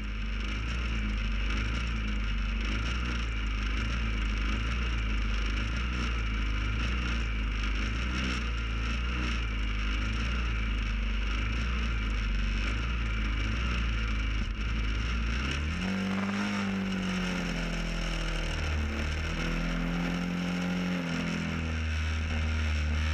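Vintage racing motorcycle engines running on a start grid, a steady buzzing drone; about two-thirds of the way through, revs rise and fall several times as engines are blipped.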